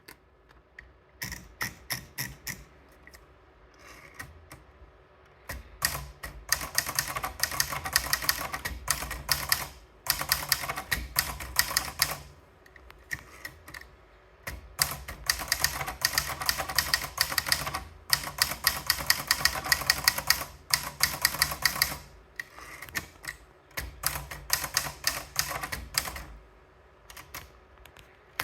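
Hermes Baby manual portable typewriter being typed on: rapid keystrokes in runs of several seconds, broken by short pauses.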